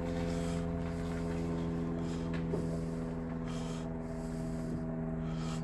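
A vehicle engine running steadily at an unchanging pitch.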